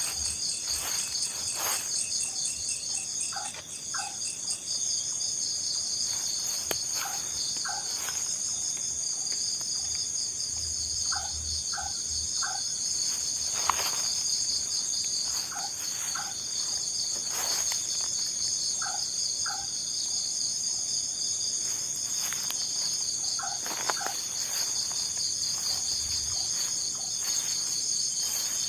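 Night insects, crickets, chirping in a steady high pulsing drone. Short two- or three-note calls repeat every few seconds underneath.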